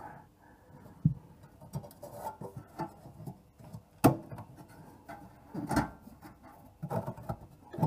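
Hands pulling and working at the air filter cover of a Tecumseh two-stroke engine, trying to get it off: scattered knocks, clicks and rubbing. There is a sharp knock about a second in and another about four seconds in.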